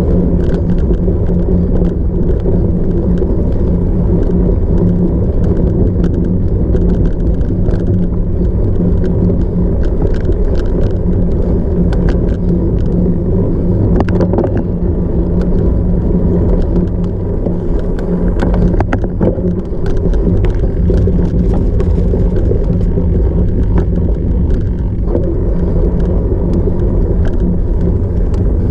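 Cyclocross bike being ridden over rough off-road ground: a steady, loud rumble of tyres and drivetrain, with scattered clicks and knocks from the bike jolting over bumps.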